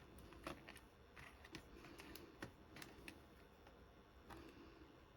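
Near silence with about seven faint, scattered small clicks and taps: small tools being handled during soldering work on a battery lead.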